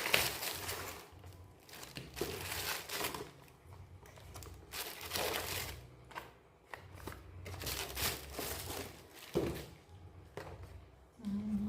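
Packaging being handled and unwrapped: crinkling and rustling in irregular bursts, with some tearing.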